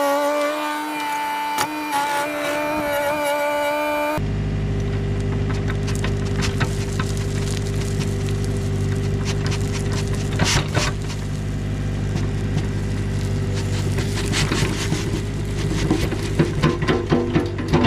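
For about four seconds a steady high mechanical whine with several overtones, which cuts off suddenly. Then the low, steady running of a construction machine's diesel engine, with frequent metallic clanks and knocks, several in quick succession near the end.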